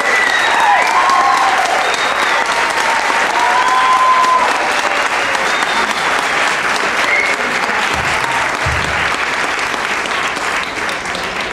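Audience applauding after the choir's song, with a few voices briefly calling out over the clapping. The applause eases off slightly near the end.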